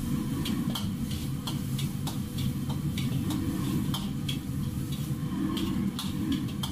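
Metal wok ladle scraping and knocking against a carbon-steel wok in irregular strokes, about two a second, while stir-frying pork slices with aromatics in oil. Under it runs the steady low roar of a gas wok burner.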